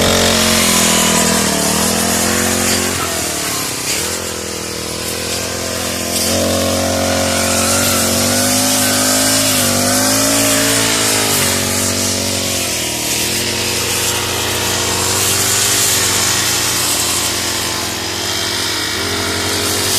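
Four-stroke brush cutter engines running at work, their engine speed rising and falling over a steady lower engine hum.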